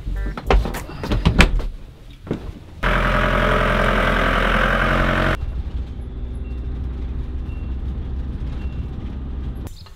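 A few sharp knocks and clicks of the camper's doors and interior fittings, then an old Ford Transit-based motorhome driving by, engine and tyre noise loud for about two and a half seconds. Then the engine's steady, lower drone heard from inside the cab while driving.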